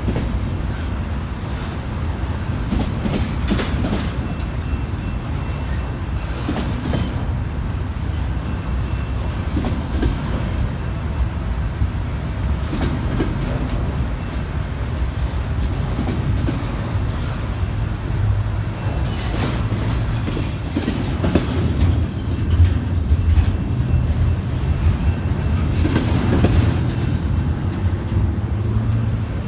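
Train rolling past at steady speed: a continuous low rumble, with wheels clicking now and then over rail joints.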